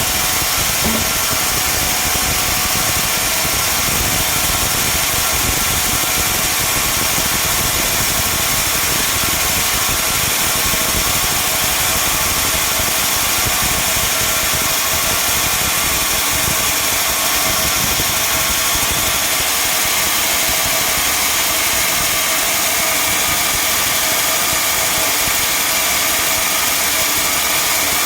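Sawmill machinery running steadily: a loud, even mechanical noise that holds without a break.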